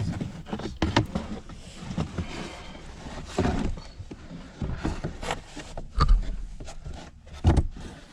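Plastic interior car trim being handled and worked loose: irregular clicks, knocks and rustling, with two heavier thumps about six and seven and a half seconds in.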